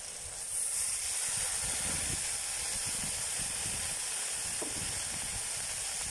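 Water poured into a hot kazan over the fire, hitting the hot metal and frying food and throwing off steam with a steady hiss that swells about half a second in.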